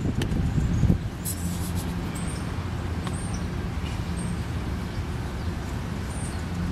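Steady low engine hum of traffic, with a low wind rumble on the microphone during the first second.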